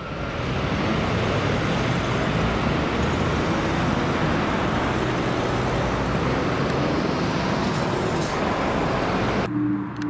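Steady road traffic noise from a fire engine and cars moving at a junction, with the siren silent. About nine and a half seconds in, it cuts to the steady low drone of a four-engine turboprop transport aircraft overhead, an Airbus A400M.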